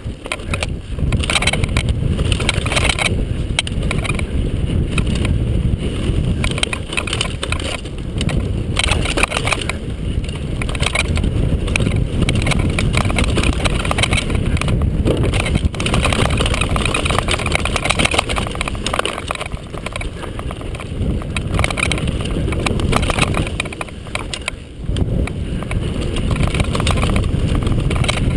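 Mountain bike riding fast down a rocky dirt trail: a continuous rumble of tyres over dirt and stones with wind buffeting the microphone, and the bike clattering over bumps. It eases briefly a few seconds before the end.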